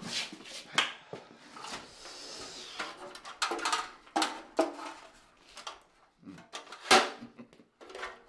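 Clattering and knocking of a metal folding frame being dragged out and set up, with a longer scrape about two seconds in and the loudest knock near the end.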